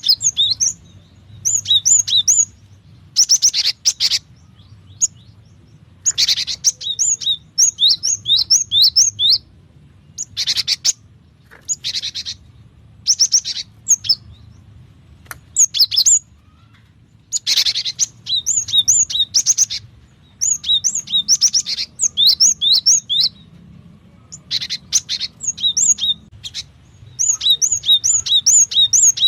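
Cinereous tits calling in quick bouts. Each bout is a rapid string of short, sharp, high notes, some mixed with brief harsh, hissy bursts, with short pauses between bouts.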